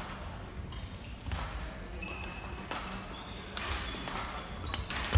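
Badminton hall ambience: racket hits on shuttlecocks from play on the busy courts, and short high squeaks of court shoes on the wooden floor, with voices in the background. A loud hit comes right at the end.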